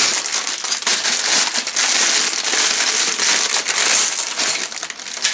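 Sealed plastic LEGO parts bags crinkling and rustling continuously as they are handled and sorted.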